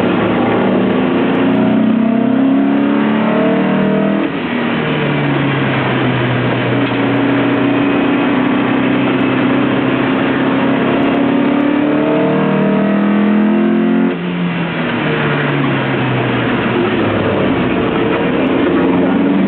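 Lotus Elise engine under hard acceleration, its pitch climbing. It drops sharply about four seconds in, climbs and holds, drops sharply again about two-thirds of the way through, then climbs once more.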